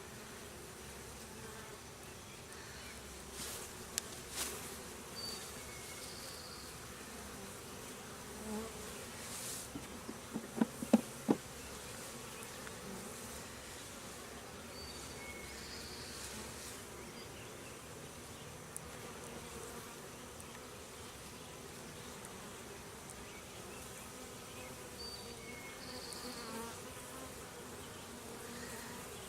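Honeybees from an opened hive buzzing steadily. A quick run of sharp knocks comes about ten seconds in.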